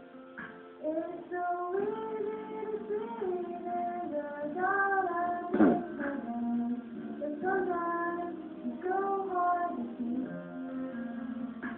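Several voices singing a slow song together in long held notes, with light instrumental accompaniment. A brief loud noise cuts across the singing about halfway through.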